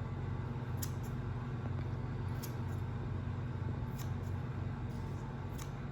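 Kitchen scissors cutting through a roll of fresh basil leaves: four short snips about a second and a half apart, over a steady low hum.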